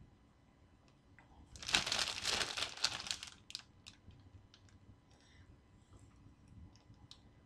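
Clear plastic bag of cables crinkling as it is handled, loudest for about a second and a half about two seconds in, then a few light rustles and ticks.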